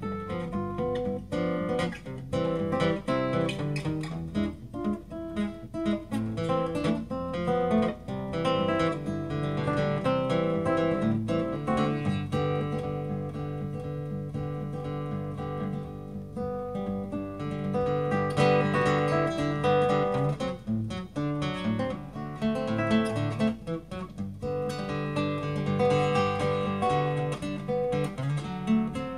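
Solo acoustic guitar played fingerstyle, picked melody over a bass line.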